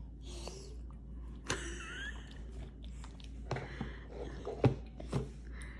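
A toddler's bowl knocking on a high chair's plastic tray: a few separate knocks, the loudest about two thirds of the way in. A short squeak that slides up and down comes about two seconds in.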